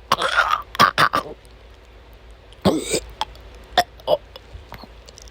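A woman coughing in harsh, short fits during an asthma attack: a quick run of coughs in the first second or so, a stronger throaty cough about three seconds in, then a couple of weaker ones.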